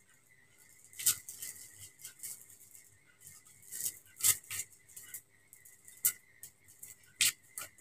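Scattered soft rustles and short clicks of clothing and a keris being handled as it is pulled out from under a hooded jacket, over a faint steady hum.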